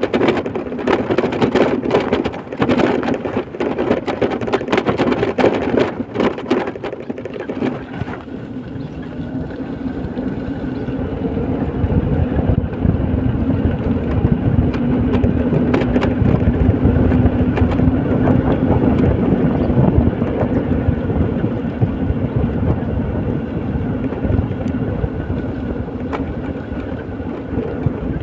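Vehicle travelling along a road: rattling and knocking for the first several seconds, then a steady engine and tyre drone that grows louder and eases off again near the end.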